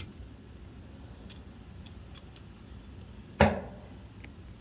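Hand tools being handled: a sharp metallic clink with a short ring at the start as a socket goes onto a 1/2-inch ratchet, a few faint ticks, then a loud single knock about three and a half seconds in.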